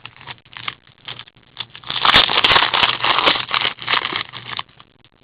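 Crinkling and rustling from handling a pack of trading cards, with small clicks at first and a louder stretch of crackling from about two seconds in until shortly before the end.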